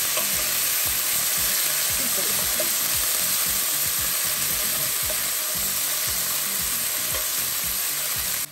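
Green seasoning (epis) sizzling in hot oil in a frying pan as a wooden spatula stirs it: a steady, dense hiss that cuts off suddenly near the end.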